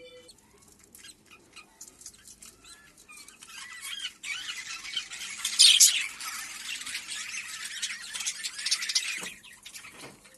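A flock of budgerigars chattering and squawking, faint at first, swelling into a dense burst of chirps about four seconds in, with one loud squawk just before the middle, then thinning out near the end.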